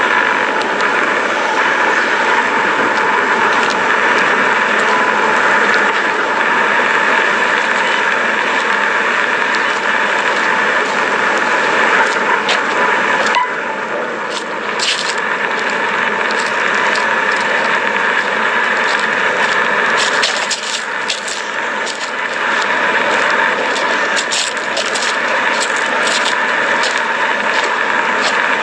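Lava flow crackling, with sharp cracks and ticks as its cooling crust breaks, over a steady rushing noise. The cracks come thicker in the second half.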